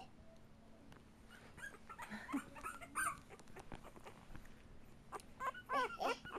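English Bulldog puppies, about three weeks old, making short high-pitched cries: a few in the middle, then a louder cluster of wavering ones near the end.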